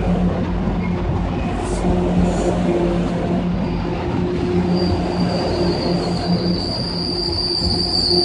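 Bilevel commuter coaches rolling past with a steady low rumble of wheels on rail; from about five seconds in a high, steady wheel squeal starts up and grows louder.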